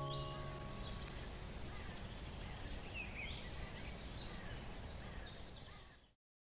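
Outdoor garden ambience: steady background noise with a few short bird chirps, as the last plucked-guitar notes die away in the first second. Cuts off to silence about six seconds in.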